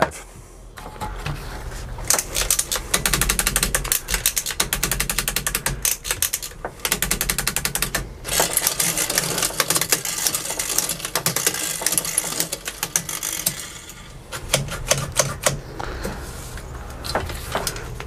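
Rear hub of a Trek 8.2 DS bicycle in a work stand, ratcheting in a rapid run of even clicks as the cranks are turned by hand. The clicking thins to scattered clicks near the end.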